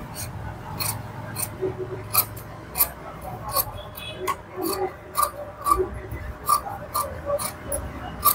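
Fabric shears snipping through stitched blouse fabric and lining, in a steady series of sharp snips about one and a half a second, trimming the seam allowance to about a quarter inch around a stitched curved design.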